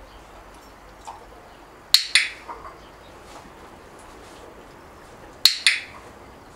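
A dog-training clicker clicks twice, about three and a half seconds apart, marking the dog's behaviour. Each click is a quick two-part click-clack.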